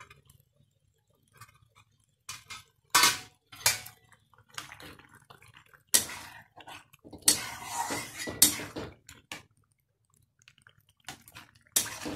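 A spatula scraping and stirring through thick curry in a kadai, in irregular strokes of scraping and clatter, with the longest run of stirring about two thirds of the way through.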